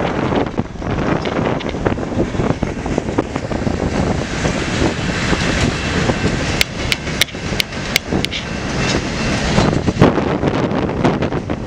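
Freight train of covered hopper cars rolling past at speed, a steady rumble of wheels on rail, with wind buffeting the microphone. About two-thirds of the way in comes a short run of sharp clicks, roughly three a second.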